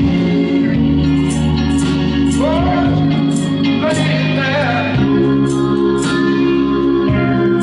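Church praise music: held organ chords over a moving bass line, with cymbals ticking in a steady beat. A voice sings a few sliding notes in the middle.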